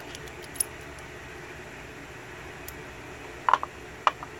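Light taps and clicks as a gutted dimple lock's plug and a pair of tweezers are set down on a wooden tray: one click about half a second in, then a few sharper knocks near the end, over a faint steady hiss.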